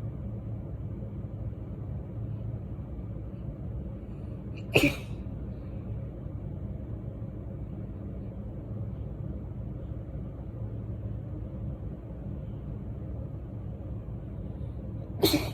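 A woman's short, sharp, barky allergy sneezes, twice, about ten seconds apart, one about five seconds in and one near the end, over a steady low background hum.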